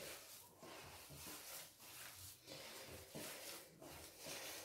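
Faint rubbing and squishing of hands pressing and gathering moist, crumbly semolina dough in a ceramic plate, in a series of soft strokes.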